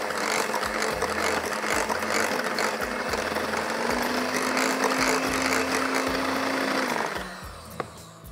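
Electric hand mixer running at speed, its beaters whipping cheesecake filling in a glass bowl, then switched off about seven seconds in. Soft background music with a steady beat plays underneath.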